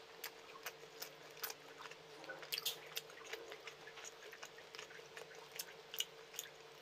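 Close-miked eating by hand: irregular wet clicks and squishes of fingers pressing rice and chicken curry together on a plate, mixed with chewing and mouth sounds. A faint steady hum sits underneath.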